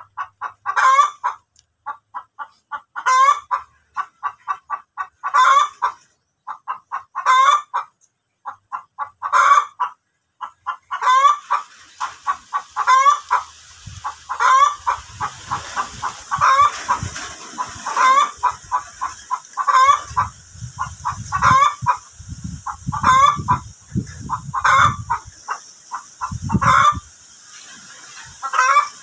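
Chickens clucking, with short calls that repeat about every second.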